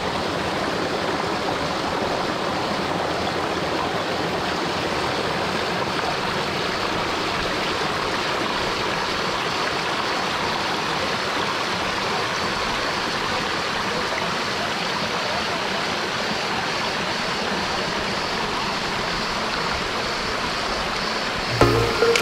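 Small rocky creek flowing over and between mossy boulders, the water splashing down little cascades in a steady rush. Music comes in just before the end.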